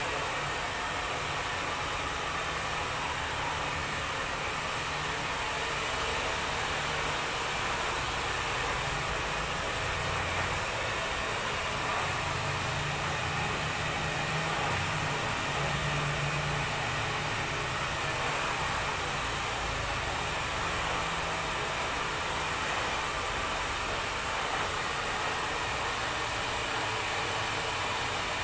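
Steady rushing air with a low motor hum, unbroken throughout.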